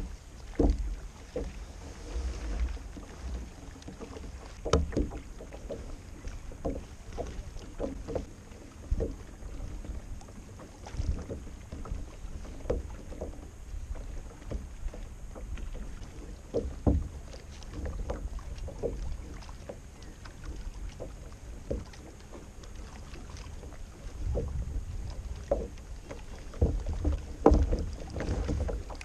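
Scattered knocks, taps and handling noises on a Hobie Passport 12 fishing kayak and its gear, over a low rumble of wind on the microphone. The knocks and rumble grow busier and louder near the end.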